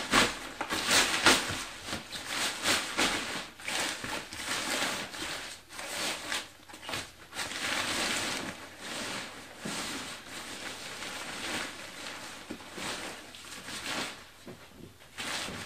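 Water-resistant fabric of an Alpkit Hunka bivvy bag rustling and swishing as a sleeping mat, sleeping bag and liner are stuffed and tugged inside it. The sound comes in uneven handling movements and is loudest about a second in.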